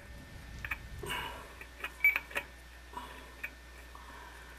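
Scattered light clicks and taps of a faucet supply line and its nut knocking against the sink's faucet shank as the line is fitted into place, with a brief scrape about a second in and a sharper click about two seconds in.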